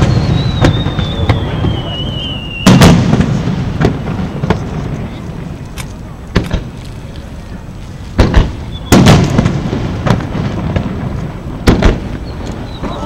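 Aerial fireworks shells bursting: deep booms about three seconds in, twice around eight to nine seconds, and again near the end, with lighter cracks between them. A thin whistle sounds in the first few seconds, falling slightly in pitch.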